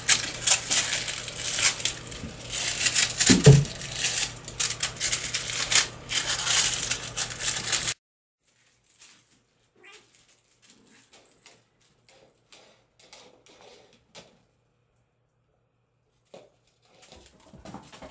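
Bengal kittens playing with toys on a stone floor: rapid clattering and rustling of toys and paws, with one short kitten meow about three and a half seconds in. About eight seconds in the sound drops away to faint, scattered ticks.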